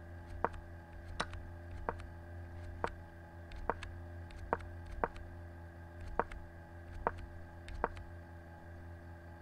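Ten sharp clicks, about one a second, as chess moves are stepped forward one at a time on a computer, over a steady low electrical hum.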